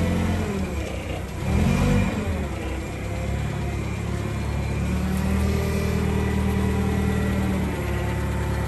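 Forklift engine running as the truck drives up, revving up briefly twice in the first two seconds, then running steadily.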